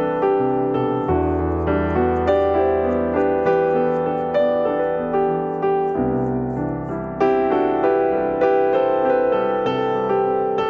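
Background piano music with gentle, steady note patterns over held bass notes.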